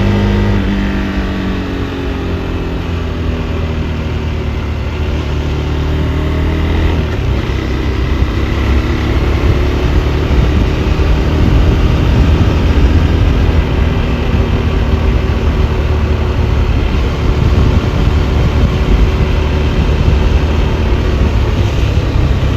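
KTM 390 Adventure's single-cylinder engine running while riding: the revs drop off at the start, then it pulls again from about seven seconds in and runs on steadily with small rises in pitch.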